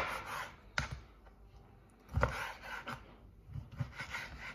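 Kitchen knife cutting a peeled orange into pieces on a wooden chopping board: several knocks of the blade on the board, the loudest right at the start, with wet slicing sounds between.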